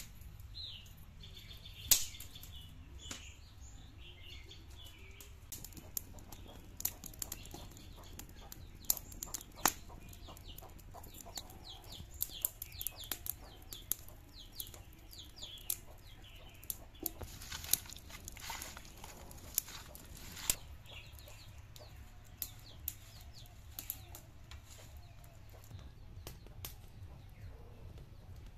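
Dry sticks snapping and rustling as they are broken by hand and pushed into a stick fire that crackles under an iron wok, giving many sharp, irregular cracks, the loudest about two seconds in.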